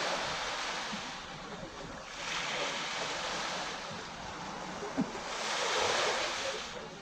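Small waves washing onto a sandy Caribbean beach close to the microphone, the hiss of surf swelling and fading twice. There is a single short knock about five seconds in.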